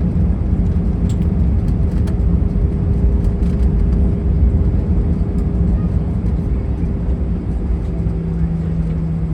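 Airbus A319 cabin noise: a steady low rumble of engines and airframe with a steady hum over it. Near the end the hum gives way to a lower one.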